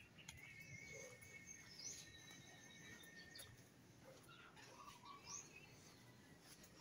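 Near silence: faint outdoor ambience with a few faint, high bird chirps and whistles.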